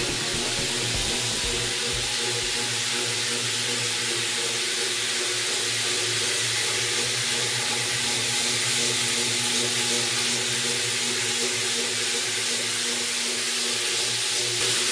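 Floor grinding machine running steadily on wet terrazzo: a steady motor hum under an even hiss.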